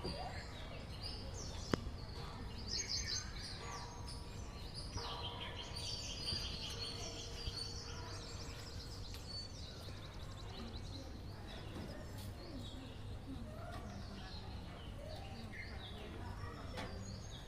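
Several birds chirping and trilling in short, overlapping calls over a steady low background hum, with one sharp click about two seconds in.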